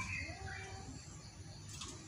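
Zebra dove cooing: the tail of one loud note at the very start, then soft, quieter notes in the gap between its loud phrases.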